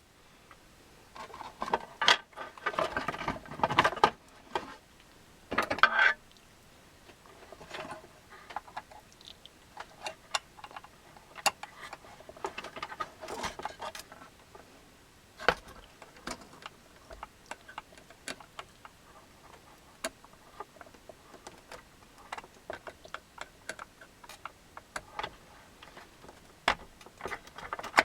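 Small tools clicking, tapping and scraping on an electronic controller's circuit board while a MOSFET is desoldered. There are rougher scraping noises in the first few seconds, then scattered sharp clicks.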